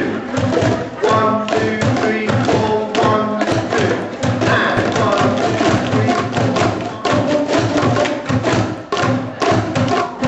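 Boomwhackers, plastic tubes each tuned to one pitch, struck in rhythm by many players at once: hollow pitched tones over a dense stream of quick taps.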